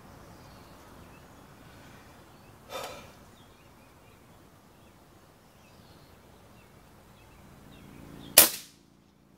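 A single shot from an Umarex Gauntlet .22 PCP air rifle near the end: one sharp crack that dies away within half a second.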